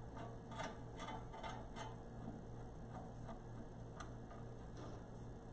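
Small screwdriver unscrewing the drip tray from the back of a fridge: faint, irregular clicks, several in the first two seconds and one more about four seconds in.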